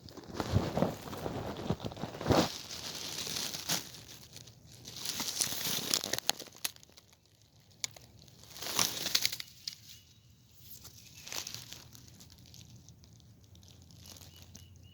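Irregular rustling and crunching of dry leaf litter, in bursts through the first six seconds and twice more later, then quieter.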